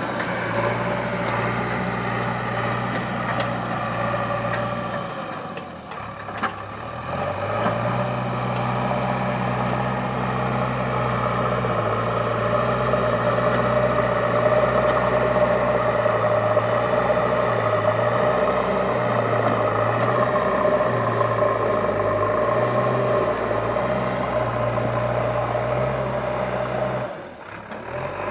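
JCB 3DX backhoe loader's diesel engine running steadily. About five seconds in it drops off briefly, then revs back up.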